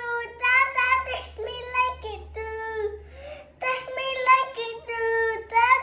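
A young boy singing in a high voice, in short phrases of held notes with brief breaks between them and a longer pause about three seconds in.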